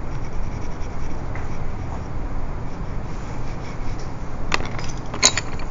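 Graphite pencil shading on drawing paper: quick, scratchy back-and-forth strokes. Two sharp taps near the end.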